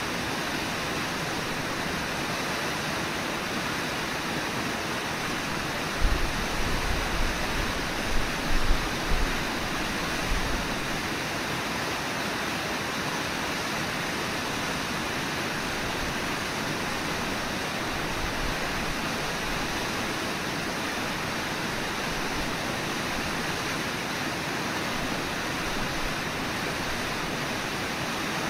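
Steady rushing of the Brooks River flowing fast over its shallows, an even hiss of moving water. A few brief low thumps come about six to ten seconds in.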